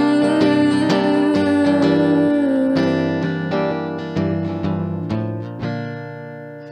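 Acoustic guitar playing a song's closing bars, strokes coming about every half second, then a final chord left to ring and die away near the end.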